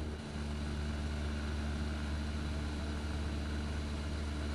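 Cessna 172's piston engine and propeller droning steadily in cruise flight, heard inside the cockpit.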